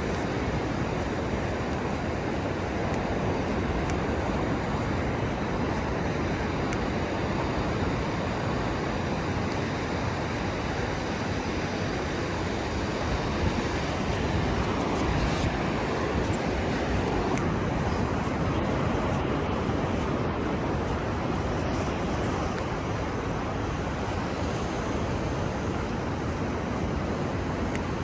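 Ocean surf breaking along a beach, a steady rushing noise, with wind.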